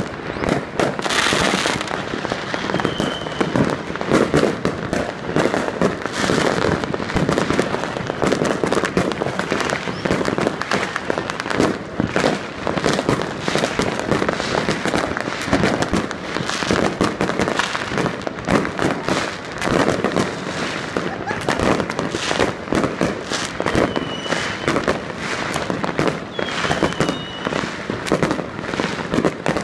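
Fireworks and firecrackers going off all around in a dense, unbroken barrage: many overlapping bangs and crackles, with a few short high whistles.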